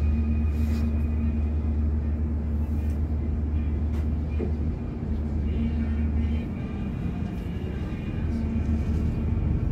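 Low engine drone and road rumble inside a large vehicle's cabin as it rolls slowly in traffic; the drone eases off about six seconds in.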